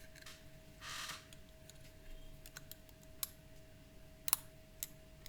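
Small, sharp metallic clicks and scrapes of a hook pick and Z-bar tension wrench being set into the keyway of an ABUS Titalium 64TI/50 padlock, with a brief rustle about a second in, over a faint steady hum.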